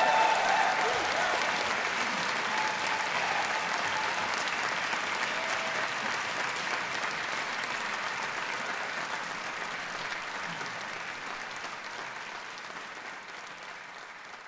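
Concert audience applauding at the end of a performance, loudest at first and slowly fading away.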